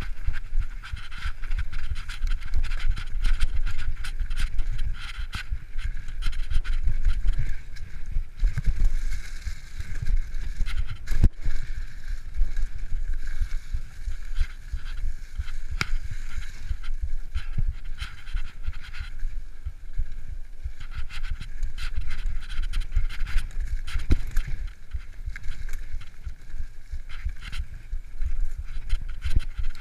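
Mountain bike riding fast over a leaf-covered dirt trail: wind buffets the microphone, the tyres rumble and the bike clatters with many small knocks over roots and bumps. Close, heavy breathing of the rider rides along with it.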